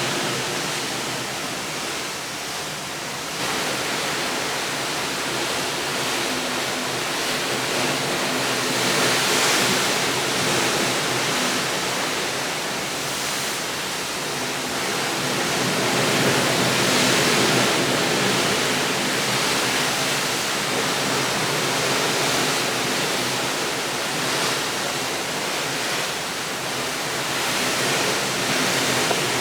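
Steady rushing noise, like running water or surf, that slowly swells and eases, with an abrupt jump in level about three seconds in.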